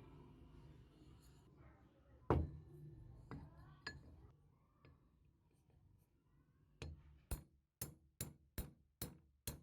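Sharp knocks and clinks of hard objects being struck: one loud knock about two seconds in, a few lighter clinks, then a run of evenly spaced taps about two a second near the end.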